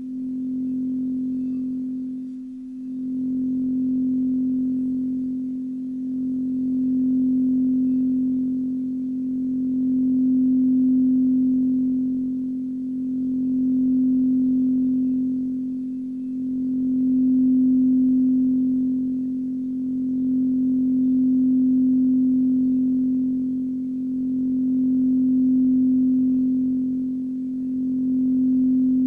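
Large frosted quartz crystal singing bowl sung by rubbing a striker around its rim, giving one steady ringing tone near middle C. The tone swells and eases every three or four seconds as the striker circles.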